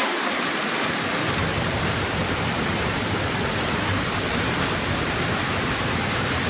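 A waterfall rushing steadily, an even wash of falling water. Its low rumble fades in over the first second.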